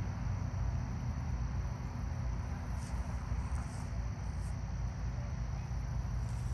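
Steady low outdoor rumble with a few brief, high, thin chirps about three to four and a half seconds in.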